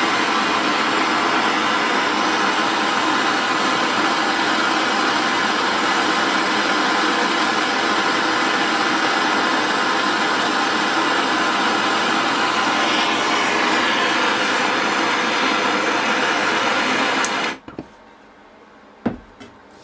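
Vortex brazing torch burning MAP gas, its flame giving a loud, steady rushing hiss as it heats a seized rusty part to cherry red. The flame is shut off abruptly near the end, followed by a single click.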